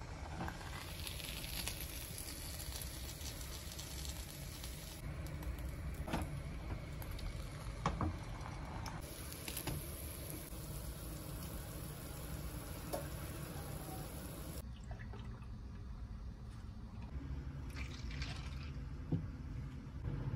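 Food sizzling steadily in a cast stovetop waffle pan over a gas burner, with a few sharp clicks and knocks as the hinged pan is handled. About two-thirds of the way through, the sizzle gives way to quieter room sound.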